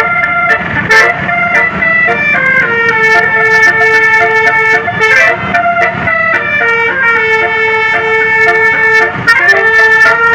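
Bus 'telolet' musical horn playing a tune: loud sustained notes, several pitched together, stepping up and down from note to note through the melody.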